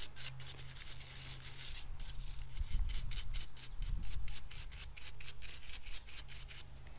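Stiff-bristled brush scrubbing a brass carburetor float wet with cleaning solution: rapid back-and-forth scratchy strokes, several a second, cleaning off soaked-loose residue.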